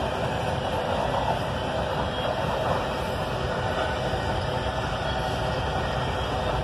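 Empty covered hopper grain cars rolling past, a steady noise of steel wheels running on rail.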